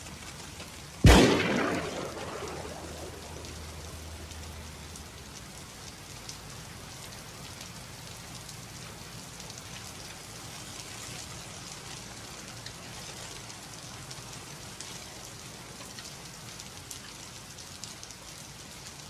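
A single gunshot about a second in, loud and sudden with a short dying echo, followed by steady heavy rain.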